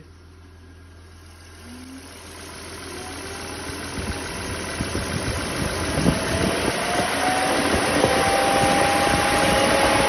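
Audi A8 main electric radiator cooling fan spinning up: a rush of air that grows steadily louder over several seconds, with a faint whine rising in pitch. The fan, reported dead, is now running and blowing hard.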